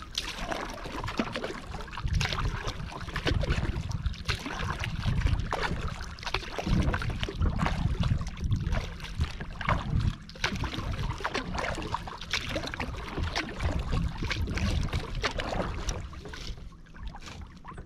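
Kayak moving across choppy lake water: paddle strokes splashing and water slapping against the hull at irregular intervals, with wind rumbling on the microphone.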